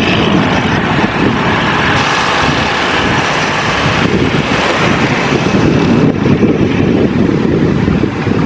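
A vehicle running steadily on the move, with wind buffeting the microphone.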